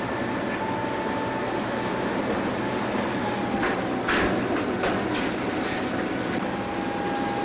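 Steady machine noise, a dense rumble and hiss with a faint whine held over it, broken by a few short knocks about halfway through.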